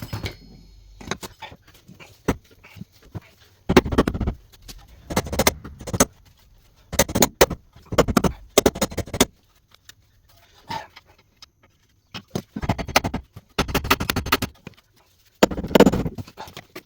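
Hammer blows on the steel front spindle and suspension joints of a Mazda RX-8, driving out the parts that still hold the spindle. The blows come in bursts of rapid strikes, about seven bursts, with short pauses between.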